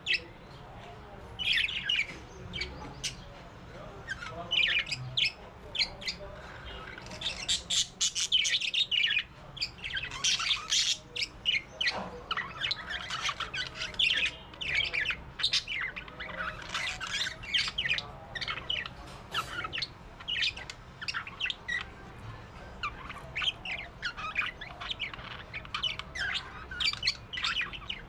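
Parrots calling: a constant stream of short squawks and chirps, several birds overlapping, busiest a few seconds in.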